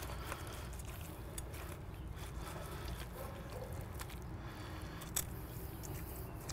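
Knife carving a roasted chicken on a wooden cutting board: faint squishing and cutting sounds, with a short sharp tap about five seconds in, over a steady low rumble.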